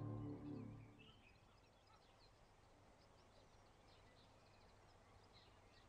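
Soft ambient music fading out over the first second, then near silence with faint, scattered high chirps.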